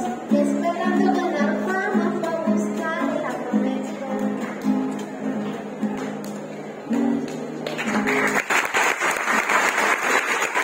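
Acoustic guitar playing a steady run of notes, then audience applause breaking out about eight seconds in as the piece ends.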